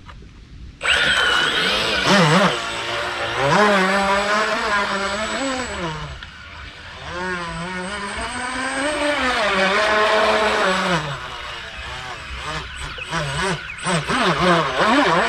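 Electric motor of a homemade RC speed boat running at speed across the water, its pitched whine rising and falling with the throttle. It starts suddenly about a second in.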